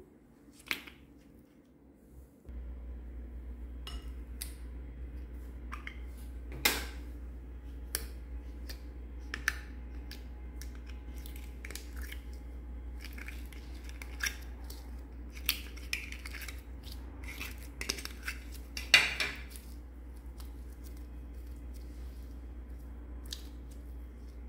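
Scattered sharp clicks and taps of small plastic makeup containers and applicators handled against a clear slime dish, the loudest about seven and nineteen seconds in. A steady low hum runs underneath from about two seconds in.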